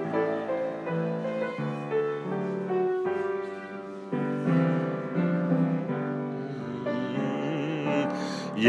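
Piano playing the slow instrumental introduction to a worship song, sustained chords with a simple melody over them.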